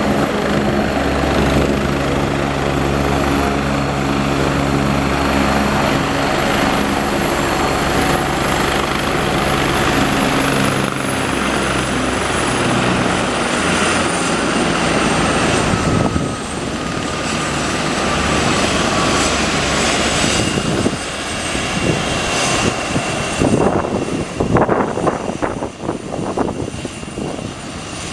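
Agusta A109E Power twin-turbine helicopter on the ground with its main rotor turning. Its steady engine and rotor drone fades after about ten seconds, then a high turbine whine slides down in pitch as the engines wind down for shutdown. Near the end an uneven, gusty rushing comes from the still-turning rotor.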